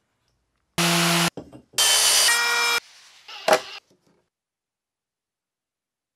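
Short snippets of woodworking tool sounds cut together: two brief bursts of a power tool running with a steady whine, each starting and stopping abruptly, then a single sharp knock with a short ring about three and a half seconds in.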